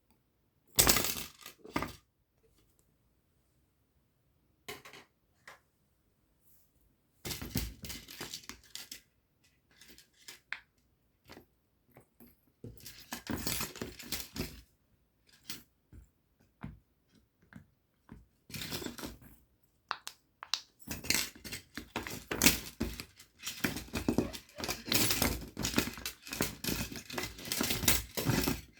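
Mini pop-it silicone fidget keychain being handled and pressed, with small pops and clicks and the metal keychain clinking. It comes in bursts with silent pauses, and turns into near-continuous clicking for the last several seconds.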